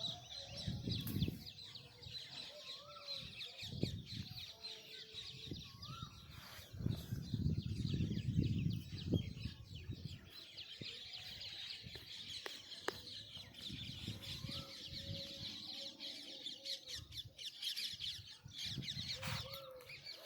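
Many birds chirping and calling together in a dense, steady chorus, with short rising-and-falling calls standing out. A few bursts of low rumble come through, the loudest about seven to nine seconds in.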